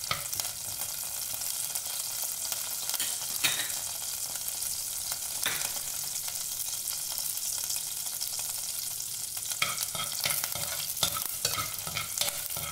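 Fenugreek seeds and curry leaves sizzling steadily in hot coconut oil in a clay pot, the seeds spluttering as they brown. A metal spatula scrapes against the clay as it stirs, at the start and again near the end.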